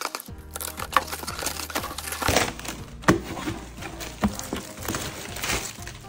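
Shoe packaging being handled and crinkled during unboxing: paper and box rustling with a few sharper knocks, over background music.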